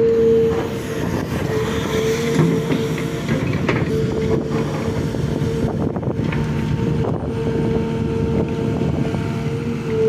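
Sumitomo SH350 LC excavator's diesel engine and hydraulics running steadily with a sustained high whine, broken by a few short, sharp knocks.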